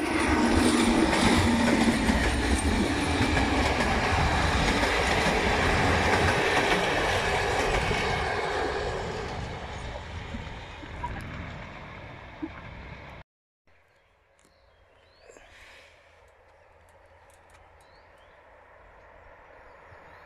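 MÁV class V43 electric locomotive and its passenger coaches rolling past, the wheels on the rails loud for the first eight or nine seconds, then fading as the train draws away. The sound breaks off about thirteen seconds in, and a much fainter steady noise follows, slowly growing.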